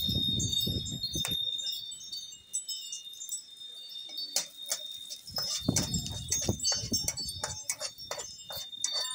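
Stainless steel spatula scraping and clinking against a wok as sliced garlic fries in oil, the clicks coming thick and fast from about four seconds in. A steady high ringing tone sits under it, with low rumbles near the start and again past the middle.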